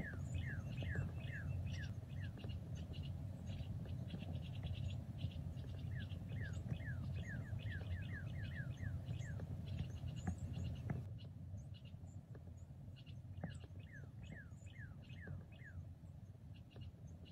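Small outdoor wildlife calling: runs of short, quickly falling chirps, about four or five a second, with faster clicking trills higher up, over a steady low rumble. The whole sound drops noticeably quieter about two-thirds of the way through.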